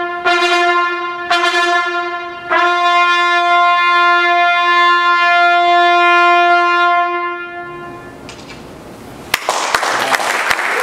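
Trumpet duet ending: a few short accented notes, then a long held final note that dies away in the hall's reverberation. About nine seconds in, the audience starts applauding.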